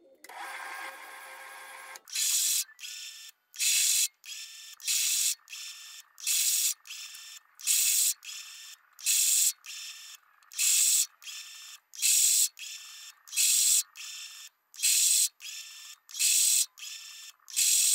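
Metal lathe single-point threading a metal shaft: a quieter steady running sound for about two seconds, then a regular run of short, loud cutting scrapes about one every three-quarters of a second as the tool takes pass after pass, with quieter gaps between.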